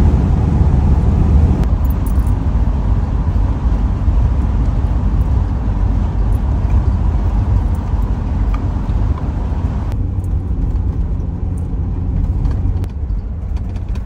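Van driving at road speed, heard from inside the cab: a steady low rumble of engine and tyre noise. About ten seconds in, the higher hiss falls away and the noise gets a little softer.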